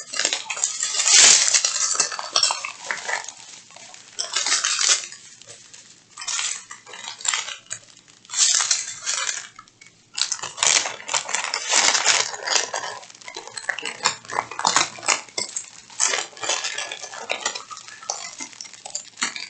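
Hands handling small plastic packets of resin diamond-painting drills and the kit's packaging: repeated rustling with small clicks and clinks in irregular clusters.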